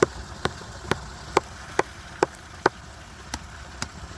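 Hammer tapping repeatedly on thick pond ice, a steady run of sharp knocks about two a second, chipping it away to open up an iced-over waterfall.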